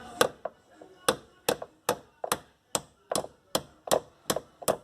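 Hammer tapping a screw wrapped in a strip of PET bottle plastic into a hole in a car door: about a dozen sharp, even strikes, a little over two a second.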